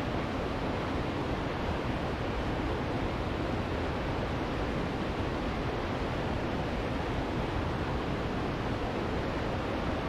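Bald River Falls, a waterfall about ninety feet high, pouring over rock ledges: a steady, even rushing of falling water with no change in level.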